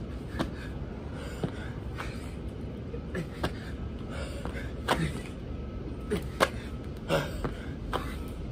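Burpees on gravelly pavement: short sharp thuds and hard breaths as hands and feet land, every second or so and loudest about five and six and a half seconds in. A steady low outdoor rumble runs underneath.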